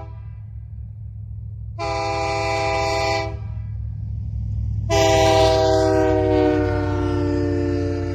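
Multi-chime locomotive air horn blowing a short blast about two seconds in, then a long blast about five seconds in whose chord sags slightly in pitch as it holds. A steady low hum runs underneath.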